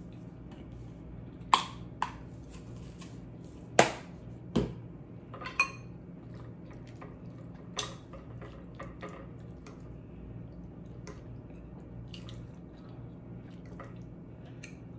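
Sharp clicks and taps of tableware. First a plastic spice shaker of red pepper flakes is handled and shaken, with the loudest knocks in the first six seconds. Then a metal fork clinks lightly against a glass bowl while it picks up cabbage. A low steady hum runs underneath.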